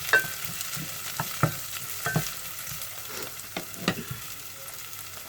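Onion, garlic and ginger sautéing in olive oil in a pot, a steady sizzle, with a utensil knocking and scraping against the pot several times as the pan is stirred.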